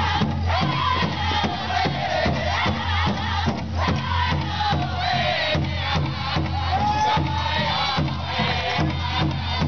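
Powwow drum group: a big drum struck in a steady, even beat while the singers chant in high, strained voices, their melody stepping down in pitch.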